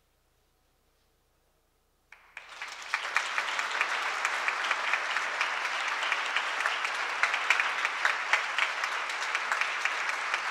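About two seconds of near silence, then an audience breaks into applause, which builds within a second to steady clapping.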